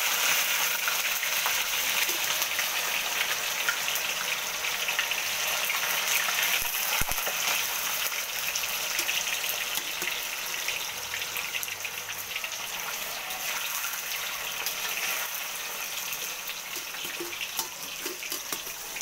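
Turmeric-coated tofu cubes deep-frying in hot oil in a wok: a steady sizzle that slowly eases over the stretch as the bubbling settles. There is a single knock about seven seconds in.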